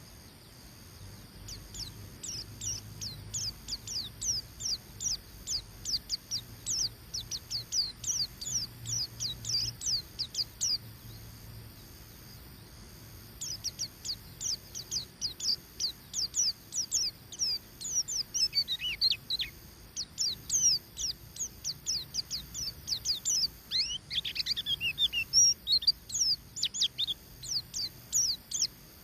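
White-eye (pleci) singing the 'ngeriwik' chatter: quick runs of short, high, downward-slurred chirps, several a second. The song comes in two long bursts with a short pause a little over ten seconds in, and the later burst has some lower, tumbling notes mixed in.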